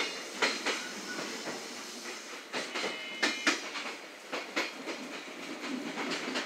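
Running noise of a JR West 227 series electric train, heard from inside the cab: wheels clicking irregularly over rail joints and yard points over a steady rumble, with a short high whine about three seconds in.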